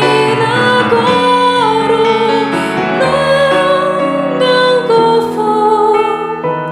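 A woman's solo singing voice with piano accompaniment: a sacred song.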